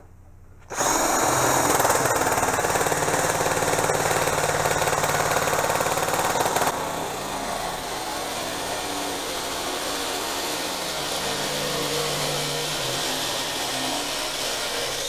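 Cordless drill driving a sheet-metal nibbler attachment as it cuts through 16-gauge steel sheet, starting up just under a second in and running steadily. About seven seconds in the sound changes and drops a little in level.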